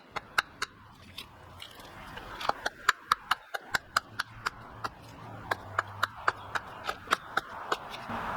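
Rapid, evenly spaced tool strikes on wood, about four a second in short runs, as dry bark is worked off a hardwood stump.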